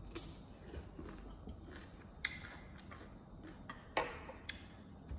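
Soft clicks and taps of someone eating: a handful of sharp clicks spread over a few seconds, the loudest about four seconds in, over a faint background hiss.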